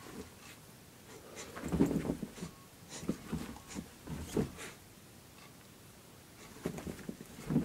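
A West Highland White Terrier scrambling and pouncing on a bed cover, its paws scratching and thumping on the fabric in irregular bursts, with a quieter lull about five to six seconds in.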